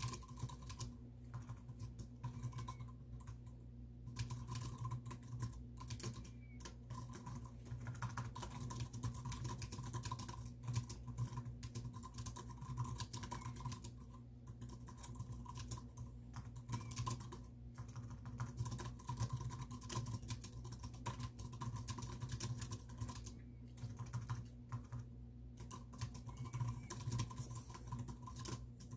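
Typing on a computer keyboard: fast runs of key clicks with short pauses now and then.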